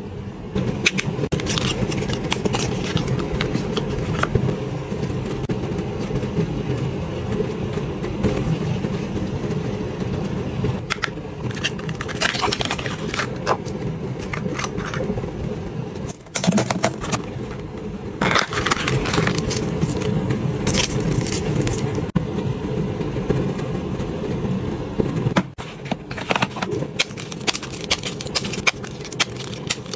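Hands handling cosmetics packaging: cardboard boxes and plastic blister packs crinkling, tapping and clicking in scattered clusters over a steady low rumble.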